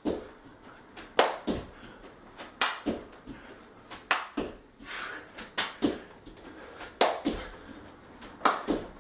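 Feet landing during jumping jacks on an exercise mat over a wooden floor: sharp thuds in quick pairs, about every second and a half.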